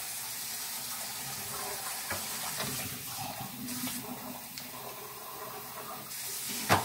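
Kitchen faucet running into the sink with a steady hiss that eases off a little after six seconds, then a single sharp knock near the end.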